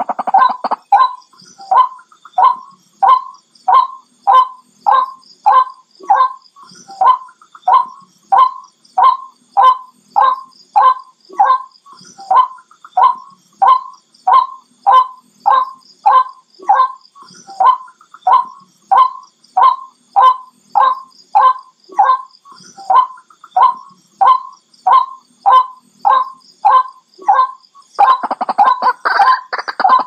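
White-breasted waterhen calling: a steady series of loud, repeated single notes, a little under two a second. About 28 seconds in it breaks into a denser, jumbled run of calls.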